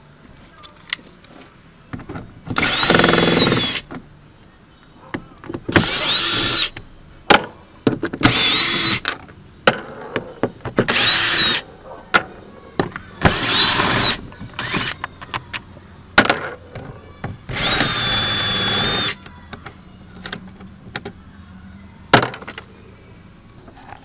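Cordless drill-driver with a Torx bit running in six short bursts, its motor whine rising and falling with each run, as it backs out Torx screws from a plastic trim panel; the last run is the longest and steadiest. Light clicks of screws and handling fall between the runs.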